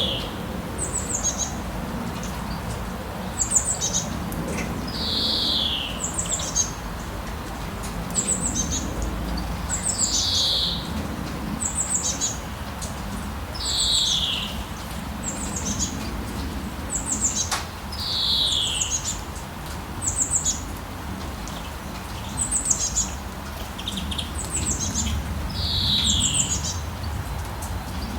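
Songbirds calling over a steady hiss of rain. Short, high falling notes come every second or two, and a longer falling call sounds lower every four to five seconds.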